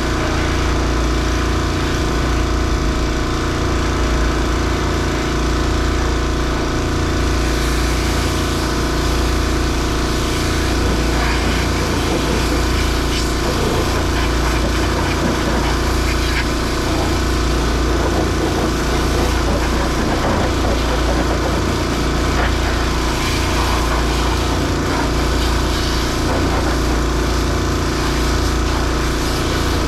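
An engine running steadily at constant speed, with no revving.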